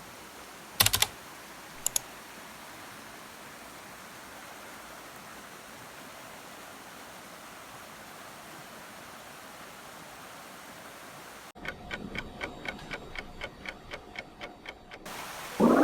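A steady hiss with two short clicks near the start, then fast regular ticking like a clock, about four ticks a second, for about three seconds near the end, and a rising sweep at the very end.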